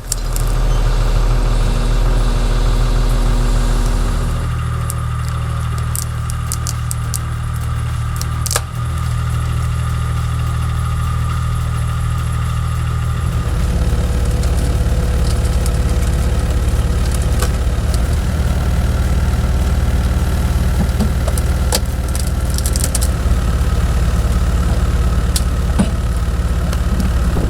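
Heavy diesel engine of an excavator-type machine running steadily, its tone shifting about four seconds in and again about halfway through, with a few short clanks.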